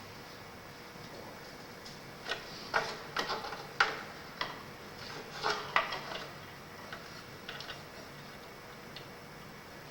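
Irregular light clicks and taps of hand work on a gillnet being hung to its lead line with cord on a hanging bench, thickest in a run of sharper clicks from about two to six seconds in, then only a few.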